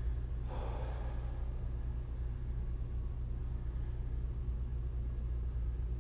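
A man exhales hard once, about half a second in: effortful breathing while holding a long plank. A steady low hum runs underneath.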